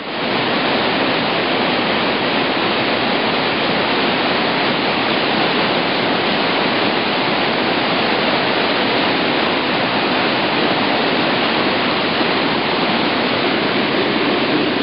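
Whitewater rapid rushing loudly and steadily as the river pours over rock ledges, fading in at the very start.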